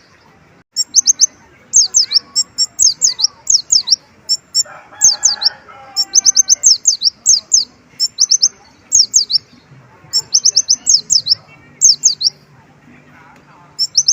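Kolibri ninja sunbird singing energetically: rapid runs of high, thin, downward-sweeping chirps in quick bursts with short gaps, a song filled with mimicked white-eye (pleci) phrases.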